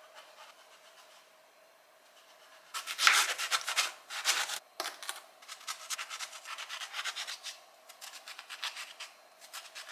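A kitchen knife cutting through an eggplant on a plastic cutting board: a loud run of slicing strokes about three seconds in, then many quick short strokes as the blade scores crosshatch cuts into the halved eggplant's flesh.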